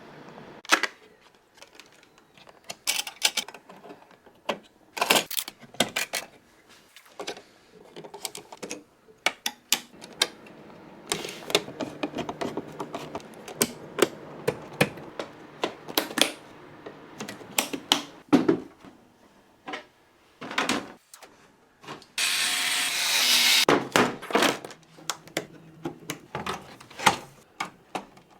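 Clicks, taps and light knocks of PC parts being handled and fitted together, in a rapid string of separate strokes. About two-thirds of the way in, a steady hiss-like noise lasts about a second and a half.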